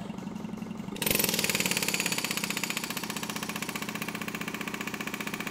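Ingersoll Rand 135MAX .401-shank pneumatic air hammer firing against a steel test fixture with its trigger feathered. It starts softly, then about a second in it breaks into a fast, even stream of blows that keeps going steadily.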